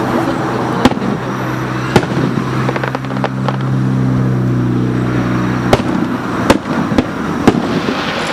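Aerial fireworks bursting, a series of sharp bangs at irregular intervals over a steady outdoor background rumble, with a steady low hum for a few seconds in the middle.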